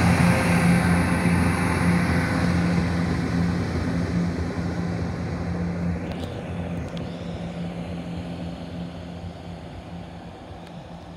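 Chiltern Railways diesel multiple unit pulling away under power: its engines give a steady low drone over wheel and rail noise, which fades steadily as the train draws off into the distance. A brief high rising squeal sounds about six seconds in.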